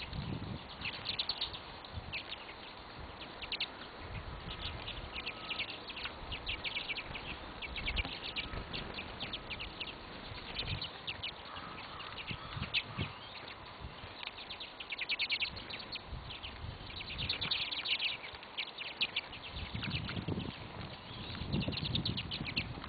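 Small birds chirping in quick series of short, high calls, over and over, with soft low thumps now and then, most of them near the end.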